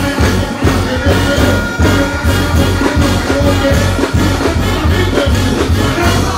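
Loud live reggae band music over the stage sound system, with a heavy, steady bass beat and a horn line.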